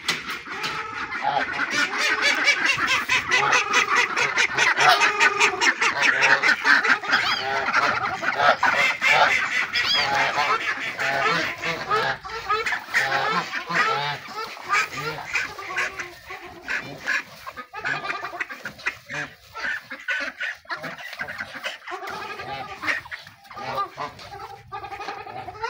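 A flock of domestic geese honking, many calls overlapping, as they crowd in to feed. The calling is densest in the first ten seconds or so, then thins out to scattered honks.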